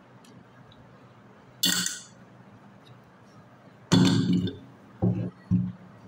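Knocks and clinks from an automotive AC compressor being handled on a workbench: a sharp metallic clink a little under two seconds in, then a heavy knock about four seconds in and two shorter knocks soon after as the compressor is tipped up on the table.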